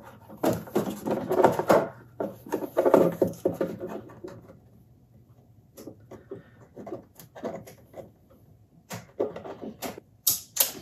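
Handling noise as a 3D-printed plastic display enclosure with adhesive squares is worked onto a laser engraver's metal frame. Rustling bursts come in the first few seconds, then scattered light clicks and taps.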